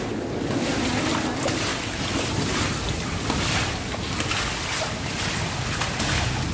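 Steady rush of heavy rain with wind on the microphone, and irregular splashes as standing rainwater is scooped up with a container and flung off a flooded concrete roof.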